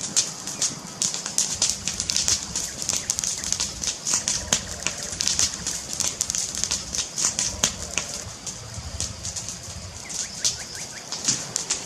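Wood fire crackling: a dense, irregular stream of sharp pops and snaps over a low, steady rumble.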